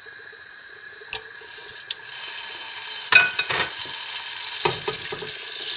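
Slabs of butter sizzling as they melt in hot olive oil in an aluminium pot, the sizzle building steadily louder toward the end. A few sharp knocks come through, the loudest about three seconds in and again near five seconds.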